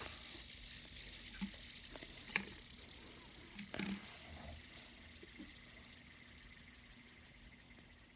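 Fidget spinner's ball bearing whirring with a high hiss just after being flicked, fading slowly as it spins down. A few light knocks of handling come in the first few seconds.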